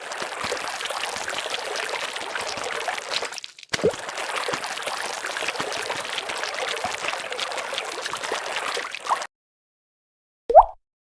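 Liquid pouring and gurgling in two long stretches with a short break between them. Near the end there is a single short tone that slides upward in pitch.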